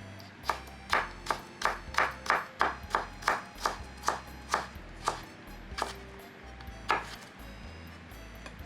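Kitchen knife chopping vegetables on a cutting board: about fifteen strokes, roughly three a second at first, then slowing and stopping near the end.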